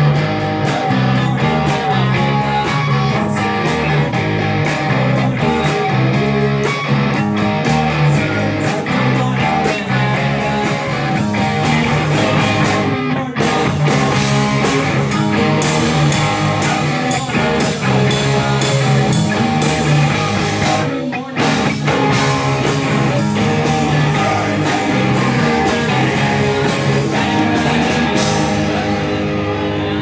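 Live rock band playing loud: electric guitars, bass guitar and drums, with two brief stops about 13 and 21 seconds in. Near the end the drums stop and the guitars ring on.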